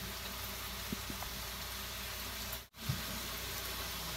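Faint steady sizzling hiss of meat frying in a pan, with a few soft handling knocks. The sound cuts out for a moment about two and a half seconds in.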